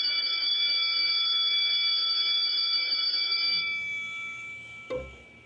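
Wall-mounted electric school bell ringing steadily, then stopping and dying away about four seconds in. A single thump follows near the end.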